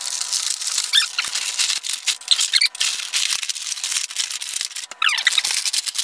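Stiff clear plastic clamshell packaging crackling and crinkling as it is pried apart and pulled off a statue, with short plastic squeaks about a second in, again midway and near the end.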